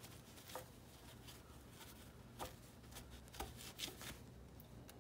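Faint rubbing of a cloth wiping a stainless motorcycle muffler, with a few light scuffs and taps scattered through, over a low steady hum.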